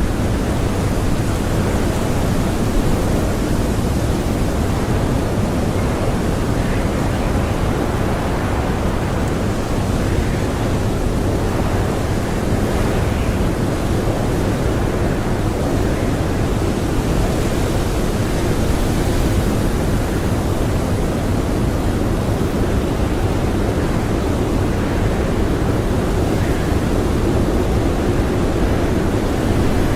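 Strong blizzard wind blowing steadily, a loud, even, deep rush with no single gust standing out.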